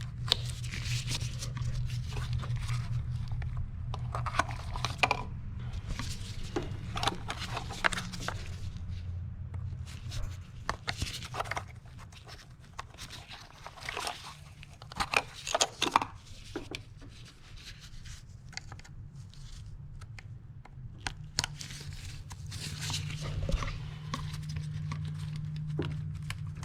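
A small flathead screwdriver and hands working the plastic electrical connectors off ignition coil packs: scattered clicks, scrapes and rubbing as the locking clips are pried up and the connectors pulled free. A steady low hum runs underneath.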